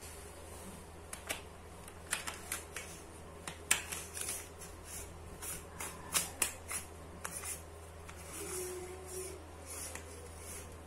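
Metal curtain grommets clicking and scraping on a curtain rod as the curtain is threaded onto it by hand, with fabric rustling: an irregular run of sharp clicks.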